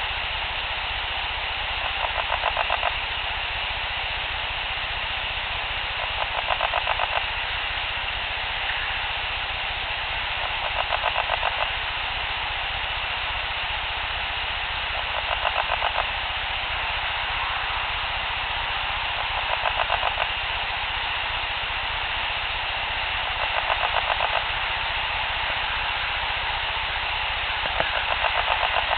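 A raspy, rapidly pulsed call about a second long, repeating at a very even pace of roughly every four seconds, seven times in all, over a steady high hiss. The uploader finds it throaty and creepy and cannot identify it.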